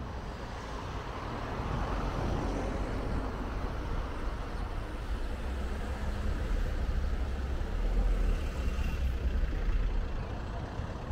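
A car driving along a road: a steady rumble of tyre and road noise that grows louder about eight seconds in, then eases off.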